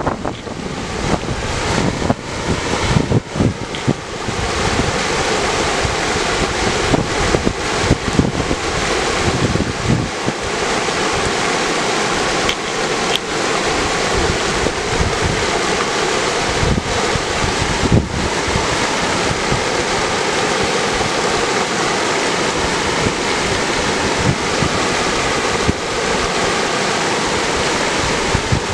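Mountain river rushing over granite slabs in a small whitewater cascade, a loud, steady rush of water. Gusts of wind buffet the microphone with low rumbles, mostly in the first ten seconds or so and once or twice later.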